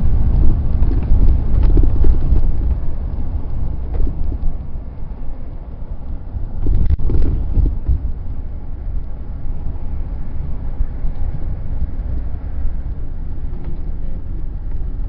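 Car driving through city streets, heard from inside: low, steady road and engine rumble with wind buffeting the microphone, and a couple of brief knocks.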